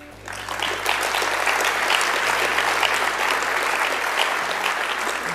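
Conference hall audience applauding: clapping swells quickly just after the start and then holds steady.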